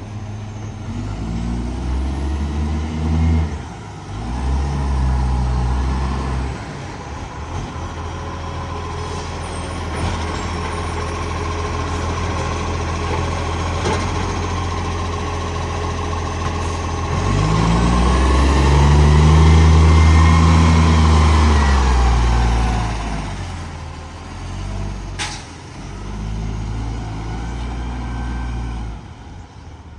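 Garbage truck's engine running with a large exhaust leak, idling steadily and revving up several times, the longest and loudest rev in the middle.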